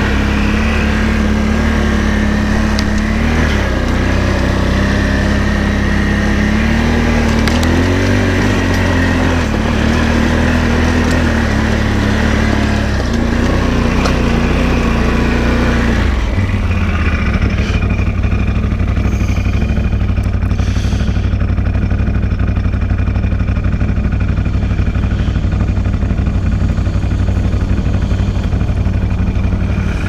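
Can-Am Outlander XMR 850 ATV's V-twin engine running under varying throttle while riding, then settling to a steady idle about halfway through.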